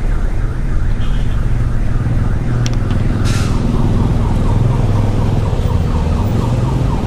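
A car driving slowly over a paving-stone street, heard from inside: a steady low engine and tyre rumble with a rapid run of light ticks, and a short hiss about three seconds in.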